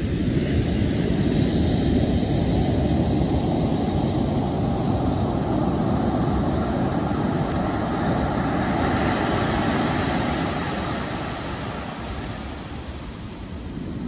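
Ocean surf breaking and washing up a sandy beach: a steady rushing that swells at the start, holds, and eases off over the last few seconds.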